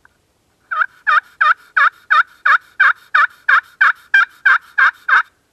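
Turkey friction pot call worked with a wooden striker, giving a run of about fourteen evenly spaced yelps at close to three a second, each note breaking from a higher pitch down to a lower one, in imitation of a hen turkey.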